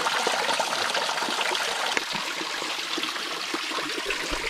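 Spring water trickling out of mossy rock and splashing steadily into a plastic water bottle being filled.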